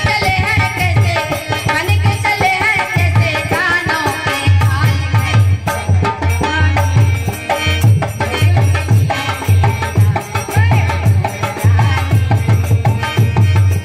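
A woman singing a song into a microphone over a loudspeaker, with a steady, rhythmic drum beat and hands clapping along.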